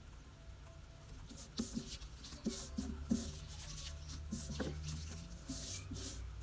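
Paper sticker sheets rustling and sliding against each other as they are handled and shuffled, in a string of short rustles starting about a second and a half in.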